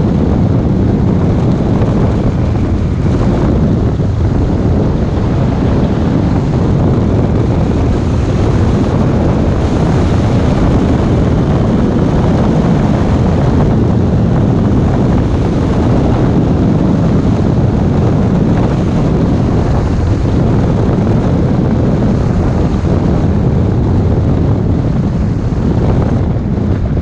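Wind rushing over the microphone of a camera mounted on a hang glider in flight: a loud, steady rush of airflow.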